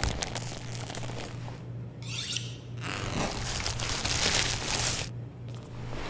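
Crinkling and rustling noise in several bursts, the longest and loudest from about three to five seconds in, over a steady low hum.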